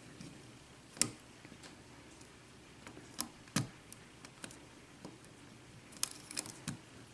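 Faint, irregular metallic clicks and ticks of a lock pick working the pin stacks of a five-pin Corbin euro cylinder under tension, with a few sharper clicks about a second in, around three and a half seconds and near six seconds.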